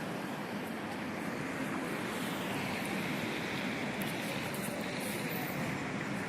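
Steady noise of a vehicle under way, a low hum under an even rush of wind or water.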